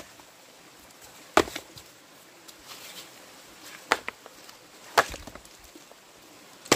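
Wood being chopped: four sharp strikes, spaced unevenly a second or more apart.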